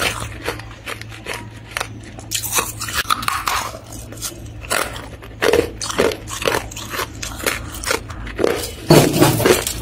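Hard, crunchy freezer frost being bitten and chewed close to the microphone: a run of irregular crisp crunches, quieter for a moment a few seconds in, with a dense burst of crunching near the end.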